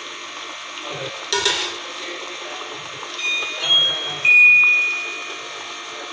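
Background music with a few high, bell-like notes; the loudest comes a little after the middle and rings out for about a second.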